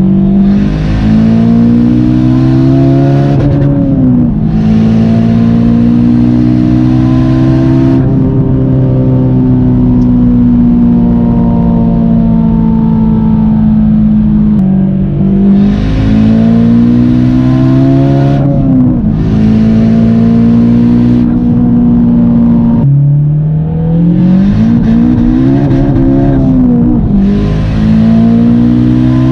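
Turbocharged 8th-generation Honda Civic engine pulling hard through the gears, its pitch climbing and then dropping sharply at each shift, several times over, with a hiss rising over the engine note during each pull. It runs on fresh step-colder NGK spark plugs and new ignition coils, fitted to cure a misfire.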